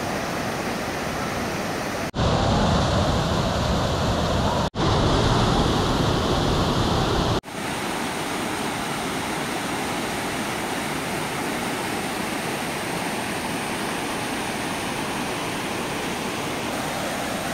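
Waterfall and mountain stream rushing over rocks: a steady, even noise of falling water. It is louder and deeper for a few seconds in the first half, with brief sudden gaps where the shots change.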